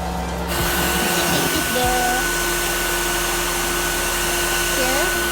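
KHIND VC9679 cordless vacuum cleaner's motor starting about half a second in, then running steadily with an even hiss and a steady whine.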